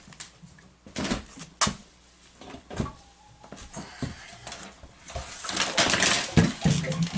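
Metal tools and plumbing fittings clinking and knocking: a few separate knocks at first, then a denser run of clattering for the last two seconds.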